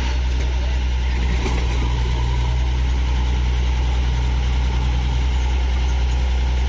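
A large engine idling steadily with a deep, even hum.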